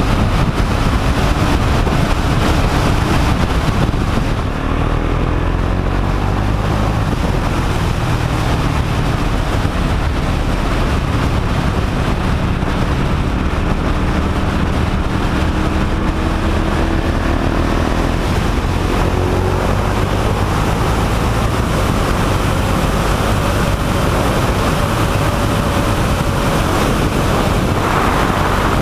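Motorcycle engine running on the road under heavy wind rush on a helmet-mounted microphone. The engine's pitch climbs slowly in places as the bike accelerates.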